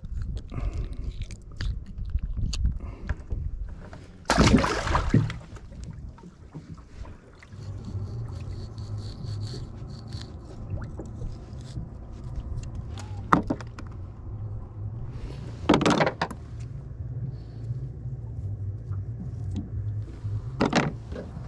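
Handling noises on a small fishing boat as a catfish is unhooked and bait is cut: a loud splash-like rush about four seconds in and a few short sharp knocks later, over a steady low hum that sets in about a third of the way through.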